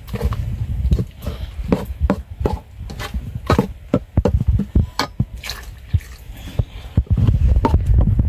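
Irregular sharp clicks and knocks over a low rumble.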